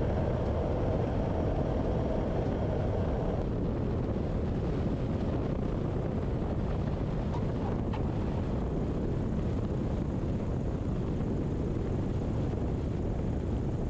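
Steady rush of airflow and engine noise on a camera mounted outside a light airplane as it comes over the runway threshold, touches down and rolls out.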